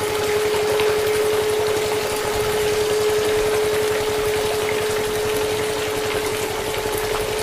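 Small DC motor water pump running with a steady, unwavering whine, driving jets of water that spray up against the underside of a toy tractor with a hissing splash.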